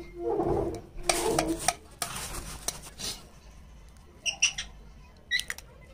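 A short whine-like call, in two parts, near the start. Then squishing and rustling as bare hands work mashed potato on a ceramic plate, and a few sharp clicks as a boiled egg's shell cracks in the second half.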